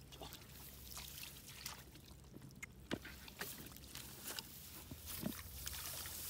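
Faint, scattered splashes and squelches of hands working in shallow muddy water and wet mud.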